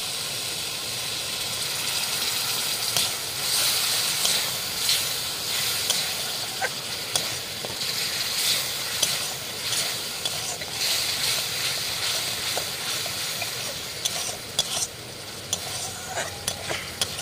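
A flat metal spatula stirs and scrapes onion-tomato masala with yogurt as it fries in oil in a metal kadai. There is a steady sizzle, broken by irregular scrapes of the spatula against the pan, which come more often near the end.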